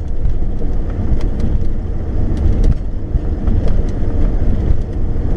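Car being driven at road speed: steady low rumble of road and engine noise.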